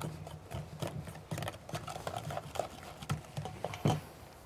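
A stirring utensil mixing flour into cupcake batter in a mixing bowl, knocking and scraping against the bowl in a steady run of irregular clicks, the sharpest about four seconds in.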